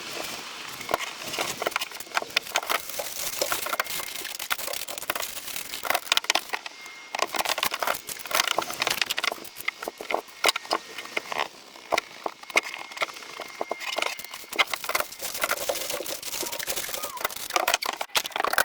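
Work noise from handling building materials: a dense, irregular run of light clicks and knocks mixed with crinkling and rustling.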